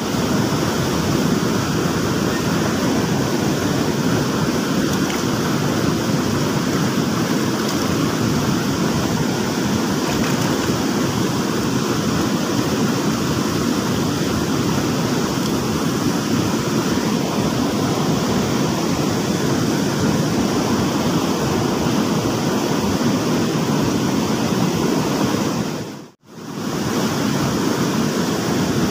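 Fast-flowing stream water rushing, a steady loud rush that drops out for an instant near the end.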